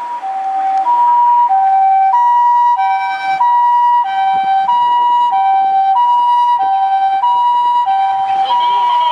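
Ambulance electronic siren of the Japanese 'Osaka siren' type sounding its two-tone pee-po call: a high and a low tone alternate about every 0.6 seconds, each with a buzzy ring of overtones. It grows louder over the first second, then stays loud, the sign of an ambulance on an emergency run.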